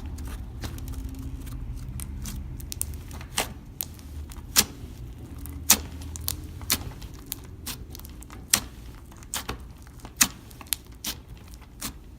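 Slime being mixed, giving irregular sharp pops and clicks, several of them loud, over a steady low rumble.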